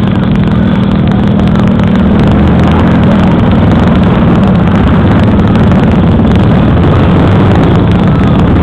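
Motorcycle engines, among them a sidecar motorcycle passing close, running loud and steady with no break.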